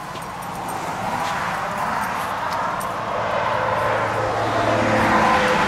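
A passing motor vehicle, its noise growing steadily louder as it approaches.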